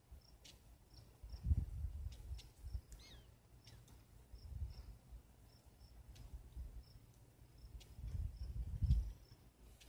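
Insect chirping in an even rhythm, short high pips a few times a second, with a few faint clicks, over a low uneven rumble of wind on the microphone.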